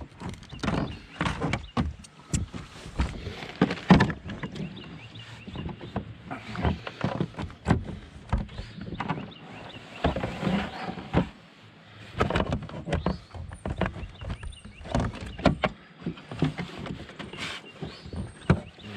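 Irregular thumps and knocks as a landed bass flops against a measuring board and the plastic kayak while it is being measured.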